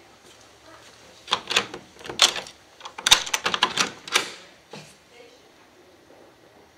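A wooden panel door's knob and latch rattling and clicking as the door is unlatched and pulled open: a quick run of sharp clicks and knocks lasting about three seconds.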